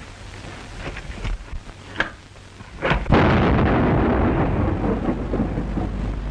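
A few sharp cracks, then about three seconds in a loud explosion in a cave, its rumble carrying on and slowly dying away.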